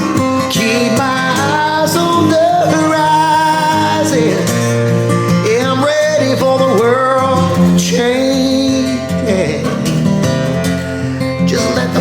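Country-style song with acoustic guitar and a melody of held, gliding notes, but no lyrics.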